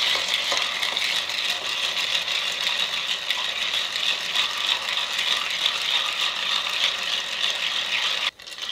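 A twisted bar spoon stirring ice cubes in a glass Mason jar: fast, continuous clinking and rattling of ice against glass that stops abruptly near the end. The cocktail is being stirred down to temperature, about 40 strokes.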